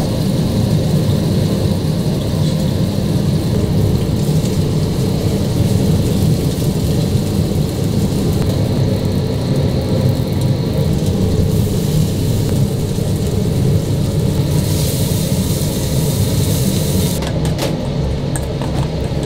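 Steady low rumble of gas stove burners with the hiss and sizzle of food cooking in hot pans, the sizzle growing brighter for a few seconds past the middle, and a few light utensil clicks near the end.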